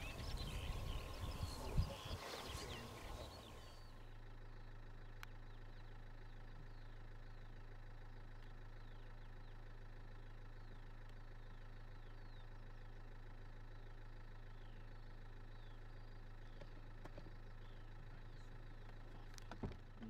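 Open-air noise with birds chirping for the first few seconds, then a steady low hum with faint bird chirps over it for the rest.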